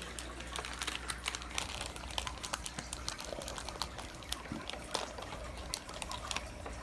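Plastic wrapping being handled off-picture, crinkling in irregular small crackles.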